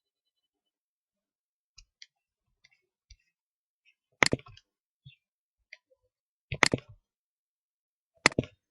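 Sharp clicks in a quiet room: three loud short clusters about two seconds apart, with fainter ticks between them.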